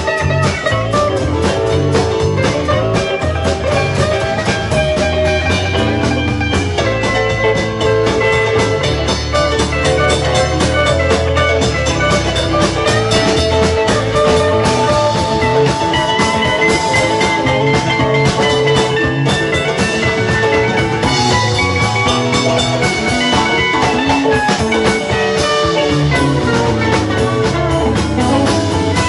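Rock band playing an instrumental passage, with guitar lines over a steady drum beat.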